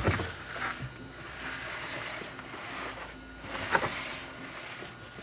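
A few soft knocks and clicks from a Stihl 084 chainsaw being handled, with one sharper clack about four seconds in.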